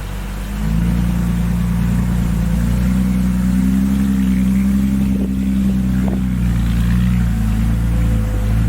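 Heavy diesel engine of earthmoving machinery, rising in pitch and loudness about a second in and then running steadily under load before easing slightly near the end.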